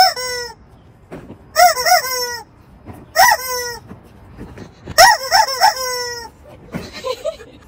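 Rubber screaming chicken toy squeezed by hand, giving four loud squawking bursts: some hold two or three quick squawks, and each ends in a drawn-out wheeze as the toy lets out its air.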